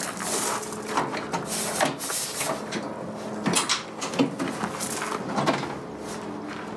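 Steel pickup tailgate on a 1987 Ford F-150 being unlatched and lowered: a run of knocks and clicks, with two sharp metal clunks about three and a half and four seconds in.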